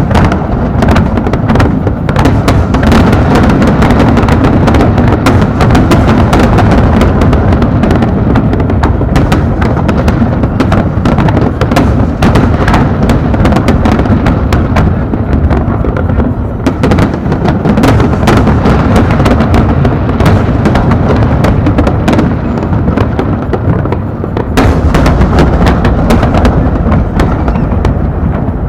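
A dense fireworks barrage: rapid, overlapping booms and crackles with a heavy low rumble, going on without a break apart from two short lulls.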